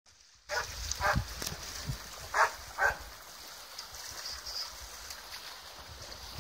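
A dog barking: four short barks in two pairs, over a low steady rumble.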